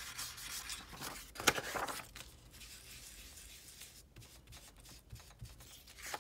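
An ink blending tool rubbing and dabbing over a sheet of copy paper, with a louder paper rustle about a second and a half in as the sheet is flipped over. After that the rubbing goes on more faintly.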